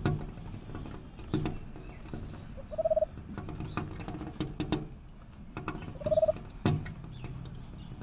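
Eurasian hoopoe tapping its bill against the window glass in sharp, irregular taps, with a short, low, pulsing call twice, about three seconds apart.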